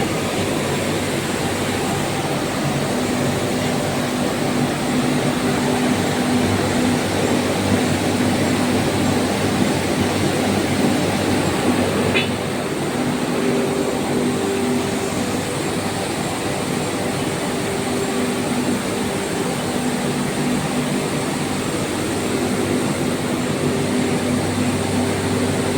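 22 kW (30 HP) fixed-speed screw air compressor running steadily with a constant hum and hiss. There is a brief click about twelve seconds in, after which it runs slightly quieter.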